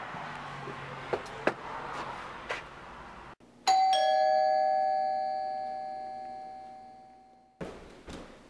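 Two-note ding-dong doorbell chime: a higher note, then a lower one a moment later, both ringing on and fading slowly until cut off suddenly. Before it, a few seconds of outdoor background with a few faint clicks.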